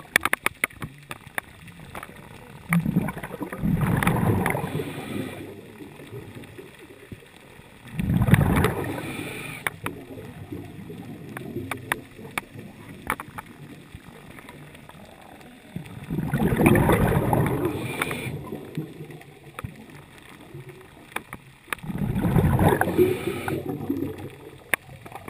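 Scuba diver breathing underwater through a regulator: four loud bubbling exhalations about six seconds apart, with quieter stretches between.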